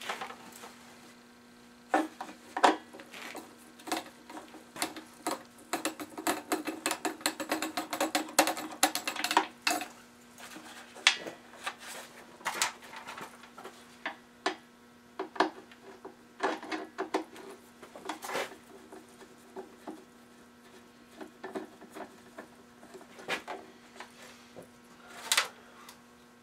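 Irregular small clicks, taps and clinks of a screwdriver and screws being worked out of the shroud of a Porter-Cable pancake air compressor, with a denser run of rapid clicking about six to ten seconds in. A steady low hum sits underneath.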